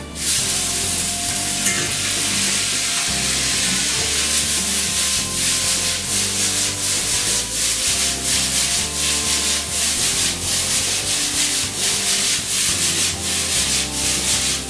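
Boiled spaghetti hitting a hot oiled wok with frying mushrooms and garlic: a loud sizzle that starts the moment it goes in. Repeated swishes about twice a second come as the wok is tossed and stirred.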